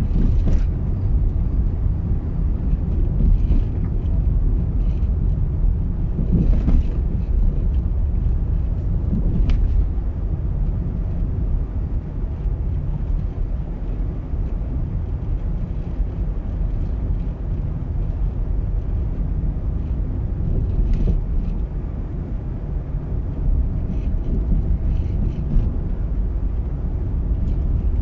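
Steady low rumble of a car driving along a road, engine and tyre noise, with a few faint ticks.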